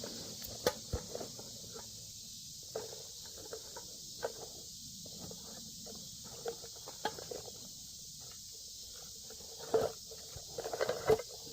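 Scattered small clicks and rustles of hands rummaging through a fire kit for a piece of char cloth, busiest near the end, over a steady high hiss of insects.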